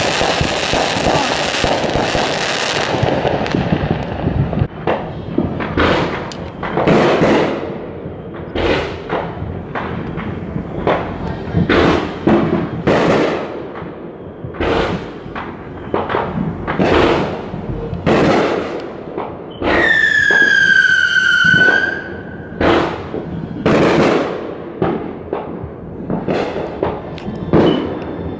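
Fireworks going off: a dense crackle of bursting sparks at first, then many separate bangs at irregular intervals throughout. About two-thirds of the way through, a held whistling tone sounds for about two seconds, sinking slightly in pitch.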